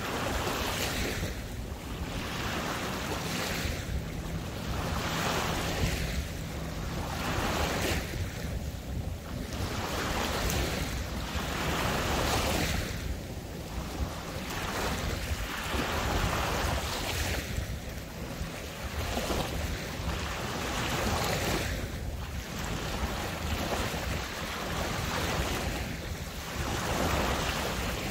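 Water of the intracoastal waterway lapping in small waves, swelling and washing back about every two seconds, with wind rumbling on the microphone.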